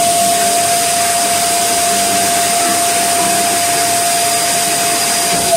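Electric balloon pump running steadily with a high, even whine over a rush of air, inflating a latex balloon.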